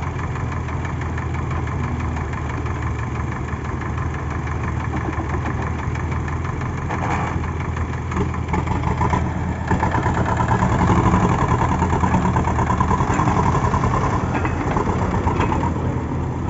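Diesel engine of a heavy digging or loading machine running steadily. It gets louder and higher from about ten seconds in, as it is revved, then eases back near the end.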